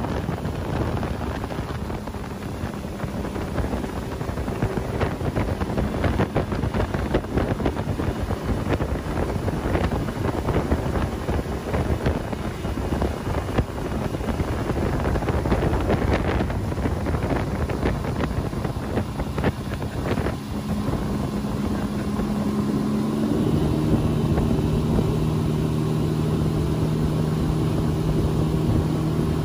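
Outboard motor running at speed while the boat tows a tube, mixed with wind buffeting the microphone and the rush of the wake. The engine's steady hum comes through more clearly in the last several seconds.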